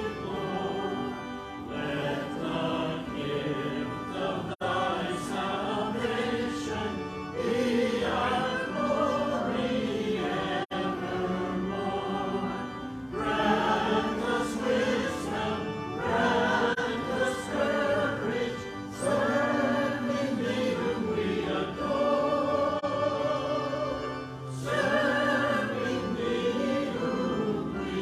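A choir singing a sacred choral piece, continuous and full-voiced, cutting out for an instant twice.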